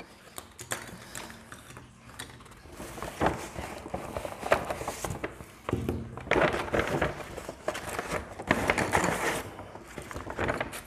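Handling noise of art supplies being unpacked: a kraft-paper shopping bag rustling, with small clicks and taps as pencils, plastic pencil-lead cases and an eraser are picked up and set down on a desk. The rustling swells twice in the second half.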